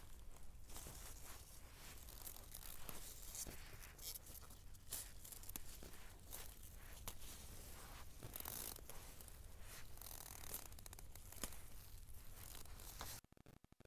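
Close rustling and crackling of leaves and plant stems, with many small irregular snaps and tearing sounds. It cuts off suddenly near the end.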